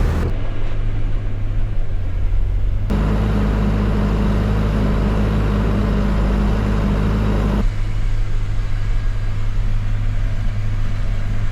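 Tractor engine running steadily with a low drone, its tone shifting abruptly a few times.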